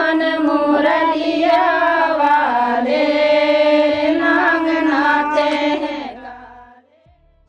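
A group of women singing a folk song together, their voices holding long, gliding notes, then fading out near the end.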